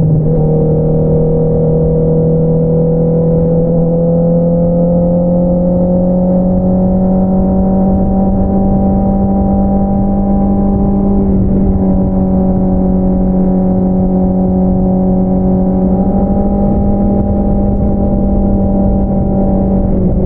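2022 Honda CBR650R's inline-four engine through an Akrapovič single-outlet exhaust, running at a steady cruise. The engine note creeps up slightly over the first several seconds, holds level, and dips briefly about halfway through.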